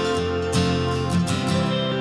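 Background music led by a strummed guitar with a steady rhythm.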